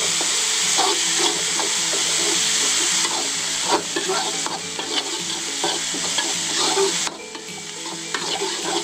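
Ground chilli-shallot spice paste and small dried shrimp sizzling in hot oil in a wide metal wok, a metal spatula scraping and stirring across the pan in repeated strokes. The shrimp are being fried until cooked. The sizzle drops noticeably about seven seconds in.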